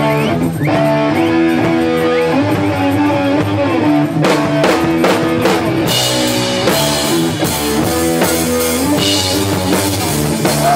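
Rock music with electric guitar and a drum kit.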